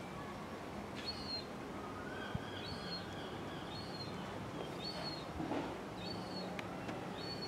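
A small bird chirping over and over, short high chirps about once a second, over steady outdoor background noise with a faint low steady hum.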